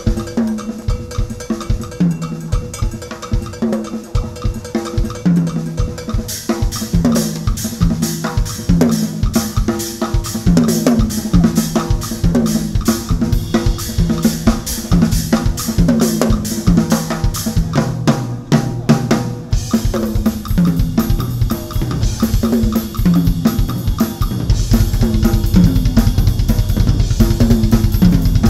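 Gretsch drum kit played solo: fast tom and snare fills throughout, with cymbals joining about six seconds in. Near the end the bass drum goes to rapid, continuous strokes, thickening the low end into a steady rumble.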